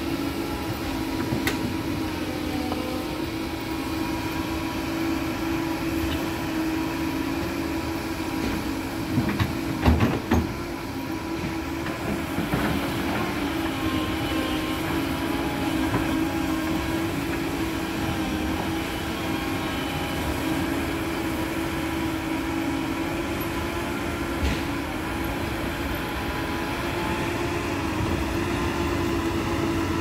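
Doosan DX225LCA crawler excavator working loose soil, its diesel engine and hydraulics running as a steady drone. A cluster of loud knocks about a third of the way in and a single knock later come from the bucket striking soil and stones.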